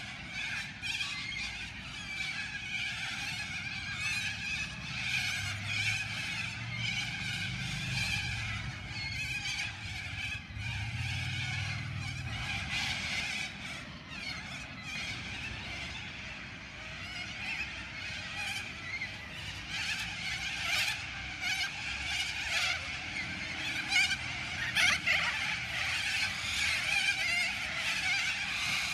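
A large roosting flock of little corellas calling all at once: a dense, unbroken chatter of many overlapping harsh calls, with louder calls near the end as birds take to the air.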